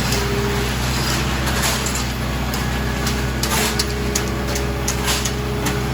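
An engine running steadily at a constant speed, with scattered clicks and knocks over it, more of them in the second half.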